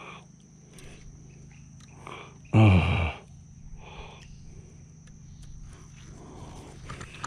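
A short, loud, low grunt falling in pitch, lasting about half a second, about two and a half seconds in, from a person close to the microphone, over a steady low hum.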